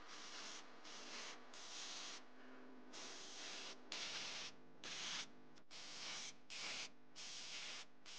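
Gravity-feed spray gun spraying Cerakote coating in short bursts of air hiss, about one a second, as the trigger is pulled and released.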